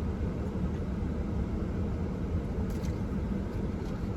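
Steady low rumble of a car idling, heard from inside the cabin, with a few faint light clicks a little under three seconds in.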